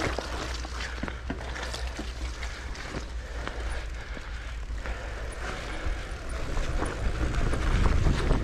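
Mountain bike rolling over a soft, muddy grass trail: tyre noise with scattered clicks and rattles from the bike, over a steady low rumble, getting a little louder near the end.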